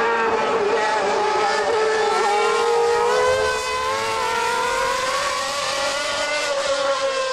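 1992 Formula One cars' engines at high revs as the cars go by on a wet track. The high engine note dips, then slowly climbs again and eases off near the end.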